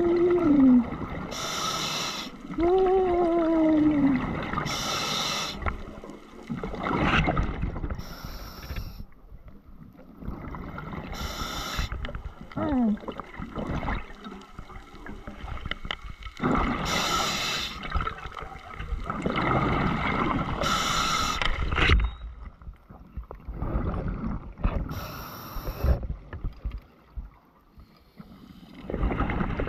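Scuba diver breathing underwater through a regulator: rushes of exhaled bubbles every three to four seconds, with two short falling tones in the first few seconds.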